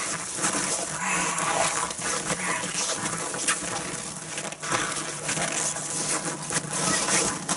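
A dog growling continuously as it grips and tugs, with a few short sharper noises mixed in.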